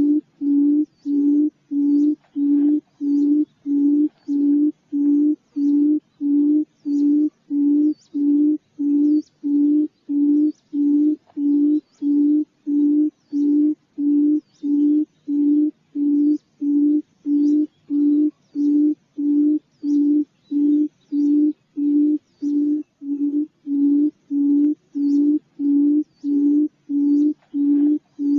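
Quail lure call: one low hoot repeated over and over at a very even pace, about one and a half times a second.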